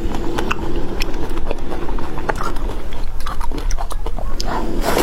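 Close-miked chewing of a fresh strawberry: a quick run of short bites and mouth clicks.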